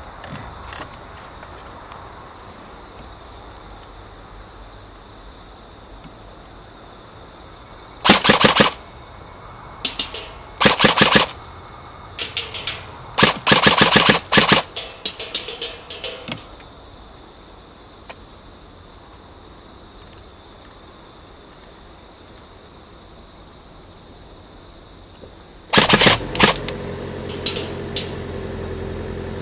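Airsoft gun firing rapid full-auto bursts: a burst about eight seconds in, several more in quick succession up to about sixteen seconds, and another near the end.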